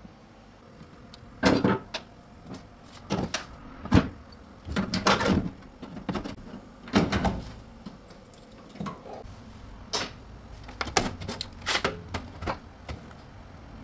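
Irregular knocks, clatter and rattles of plastic and metal washing-machine parts being handled and moved while the machine is taken apart, a dozen or so sharp knocks at uneven gaps.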